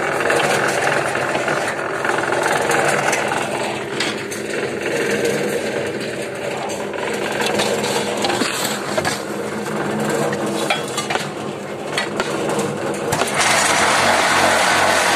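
Concrete block-making machinery running, a steady mechanical drone with metallic clattering and rattling. About 13 seconds in, the sound changes abruptly and becomes louder and more even.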